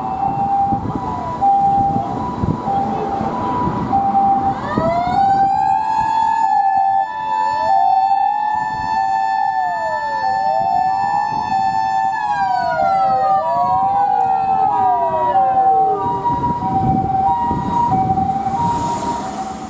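A Japanese ambulance's Osaka Siren amplifier sounds three siren tones at once. The standard "pee-poh" two-tone alternates steadily throughout. From about five seconds in, a remote "woo" siren wails up and down. A motor-siren tone winds up about five seconds in, holds high, and winds down from about twelve seconds in. Low engine and road noise runs underneath.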